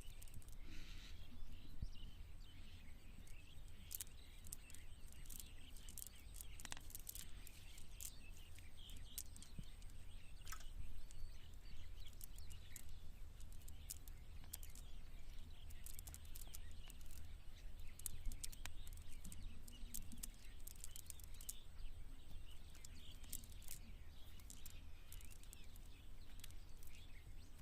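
Faint outdoor ambience: scattered sharp clicks and faint bird chirps over a steady low rumble.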